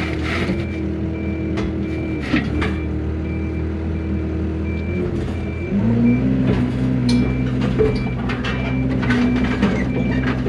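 Yanmar mini excavator's diesel engine idling, then throttled up a little over halfway through, its pitch stepping higher and louder. A high electronic beep repeats about twice a second over it, with a few sharp clanks of the machine.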